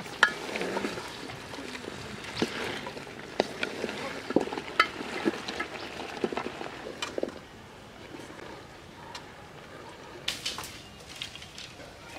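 Chopped vegetables and greens being dropped into a hot aluminium pot and stirred with a wooden spatula: irregular knocks and scrapes of the spatula on the pot over a light sizzle.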